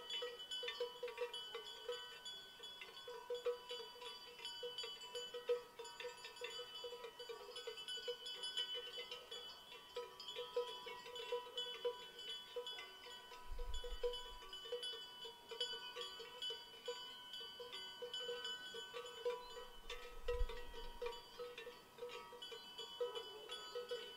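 Many cowbells on grazing livestock clanking irregularly and overlapping, each clang leaving ringing tones. There are two brief low rumbles, one a little past halfway and one near the end.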